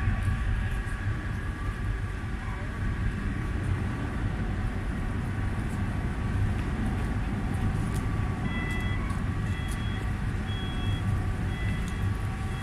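Steady low rumble of the berthed car ferry MV Clansman's engines running. In the second half a high electronic warning beep starts repeating about every half second.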